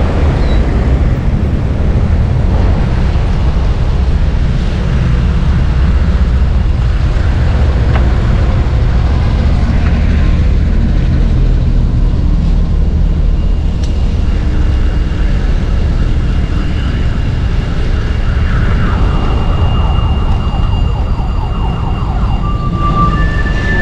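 Wind buffeting a camera microphone on a moving bicycle, over city road traffic. From about halfway through, faint steady high tones join in.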